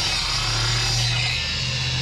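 Sliding compound miter saw running at full speed with a steady high whine, its blade cutting through a wooden board.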